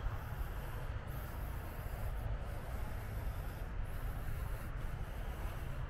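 Steady outdoor background noise with a low, uneven rumble.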